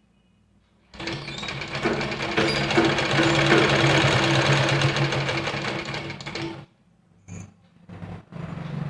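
Sewing machine stitching piping onto a blouse neckline. It starts about a second in and runs steadily for about six seconds, stops, then runs in a few short bursts near the end as the fabric is guided around the curve.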